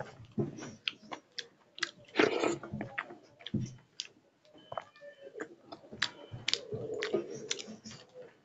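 Close-up eating sounds: wet chewing and smacking of a mouthful of rice and curry, with a hand squishing and mixing rice against a steel plate. Irregular short clicks and smacks throughout, busier about two seconds in and again near the end.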